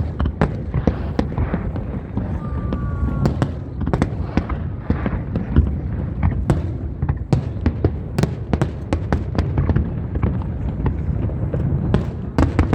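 Fireworks display: a rapid, irregular run of bangs and crackles over a continuous low rumble of bursts, with a brief whistle about three seconds in.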